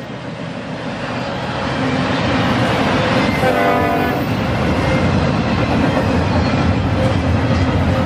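Double-stack intermodal container cars of a freight train rolling past close by: a steady rumble and rattle of wheels on rail that builds over the first couple of seconds and then holds. A short pitched tone sounds about halfway through.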